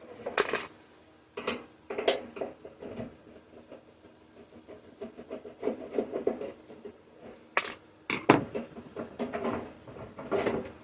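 Scraping and clicking of the screws that hold a microwave oven's door being worked out, with sharp metal knocks a little before and just after the eight-second mark as the door comes loose.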